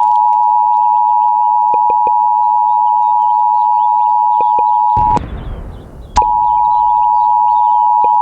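Emergency Alert System attention signal: two steady tones near 850 and 960 Hz sounding together. About five seconds in it drops out to a second of fading hiss, then resumes.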